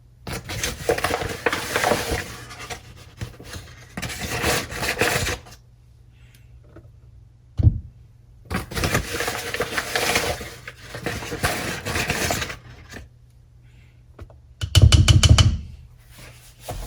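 Flour being scooped and measured with a measuring cup: two long spells of scraping and rustling, a sharp knock about halfway through, and a heavy thump near the end.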